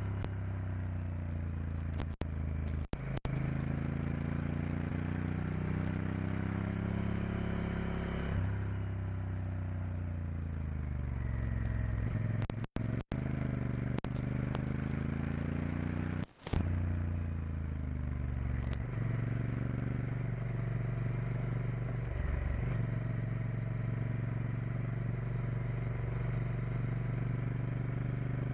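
Honda Varadero XL1000's 90-degree V-twin engine running under way, its revs rising and falling with the throttle, then holding steady through the second half. The sound cuts out for a moment a few times.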